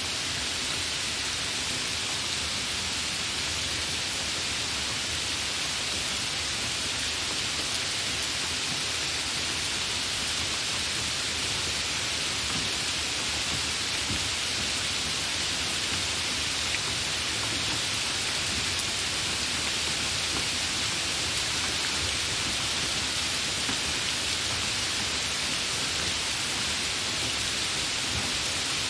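Hard rain falling in a steady, even hiss.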